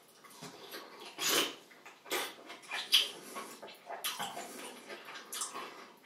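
Wet, noisy chewing and smacking of food in irregular bursts, with the scrape and clink of a fork on a plate; the loudest bursts come about a second, two seconds and three seconds in.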